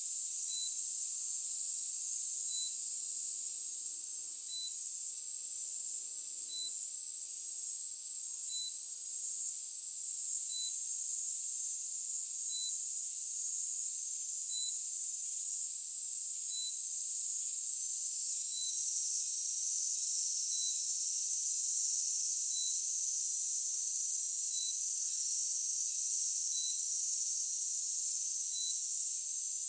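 Steady high-pitched chorus of insects, with a short electronic beep repeating about every two seconds.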